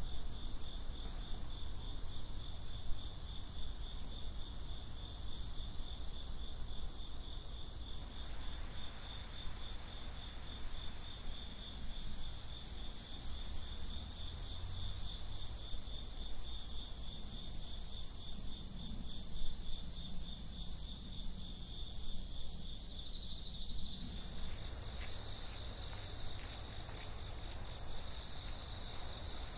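A night chorus of crickets, bell crickets among them, calling steadily. Several high-pitched songs overlap: one has a rapid, even pulse, and a higher one gets louder about three-quarters of the way through.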